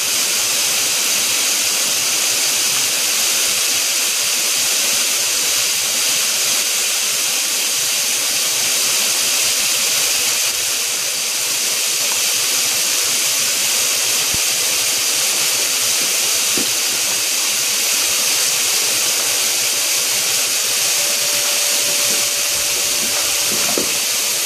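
Garden hose spray nozzle hissing steadily as its jet of water hits the water in a plastic kiddie pool.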